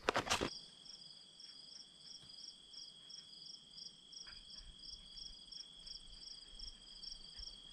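Insects chirping in the woods: a steady high trill with a faster pulsed chirping above it, about three pulses a second. A brief loud scuff of footsteps on the trail at the very start.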